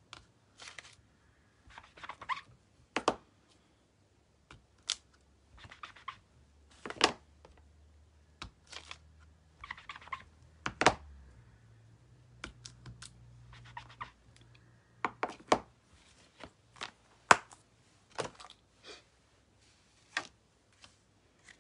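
Clear acrylic stamp blocks clicking and knocking against one another and the craft desk as they are handled and set down while the stamps are wiped clean. The clicks are sharp and irregular, about one every second or so.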